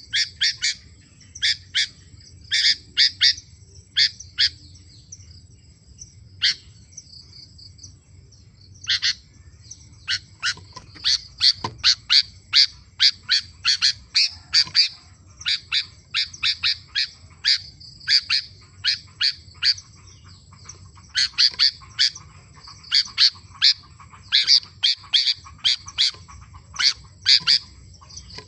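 Sooty-headed bulbul (kutilang) singing in rapid runs of short, sharp, high notes. The notes come in clusters, with a pause of a few seconds after the first runs, then near-continuous bursts.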